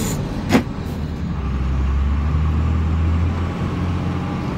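Vehicle engine running, heard from inside the cab as a low drone that grows louder from about a second and a half in and eases off near three and a half seconds. There is a single sharp knock about half a second in.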